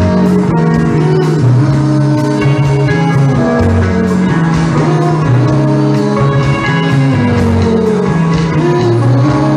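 Live rock band playing, with electric guitars to the fore.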